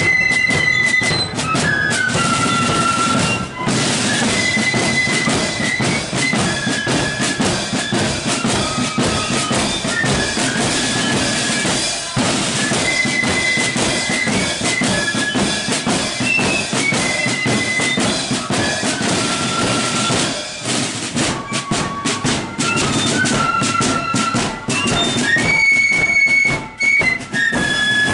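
Marching flute band playing a tune: high flutes carry the melody in held notes over a steady beat of snare drums.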